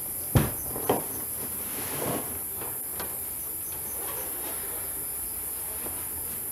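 Steady high-pitched chirring of crickets and other night insects, broken by two sharp knocks about half a second and a second in and a softer rustle near two seconds.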